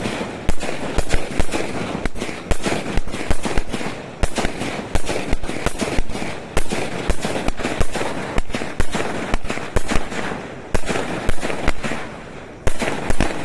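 Fireworks going off in quick succession: a dense run of sharp bangs and crackles, several a second, that eases briefly near the end and then picks up again.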